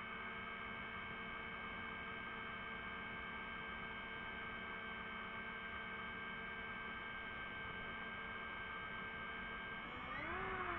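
DJI FPV drone's motors and propellers spinning at idle with the drone on the ground, a steady whine of several tones at once. About ten seconds in the pitch swoops up and back down as the motors speed up briefly.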